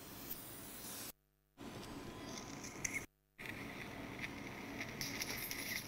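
Faint steady hiss of surgical suction with small clicks and scrapes of instruments working in the ear canal. The sound cuts out to silence twice, briefly, about a second in and again about three seconds in.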